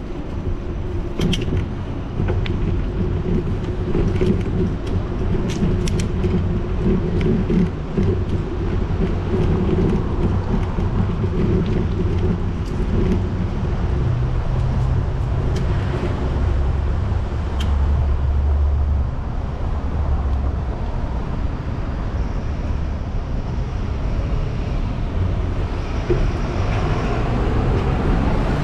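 Bicycle riding over paving tiles and a paved walkway, recorded from the moving bike: a steady low rumble, with sharp clicks and rattles over the first several seconds. Street traffic with buses sounds behind it and grows louder near the end.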